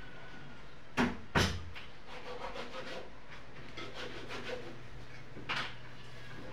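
Two sharp knocks about a second in, then light clicking and scraping, and another knock near the end: a plate and a metal bowl of filling being handled on a table during hand-wrapping of lumpia.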